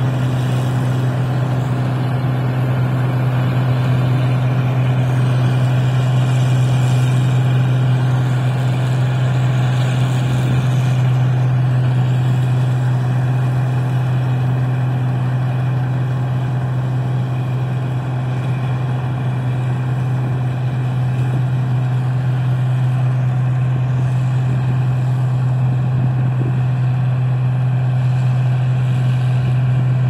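Rice combine harvester running steadily as it cuts and threshes a paddy, a constant low engine hum with an even mechanical hiss over it.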